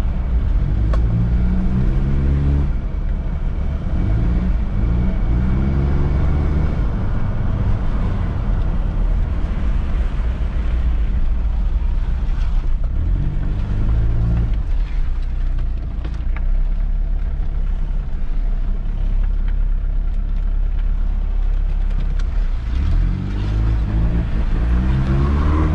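1995 Mitsubishi Pajero short-wheelbase's 2.8-litre turbo-diesel engine with its automatic gearbox, heard from inside the cabin while driving over a steady road rumble. The engine note rises in pitch about four times as the vehicle accelerates, then falls back as the gearbox changes up.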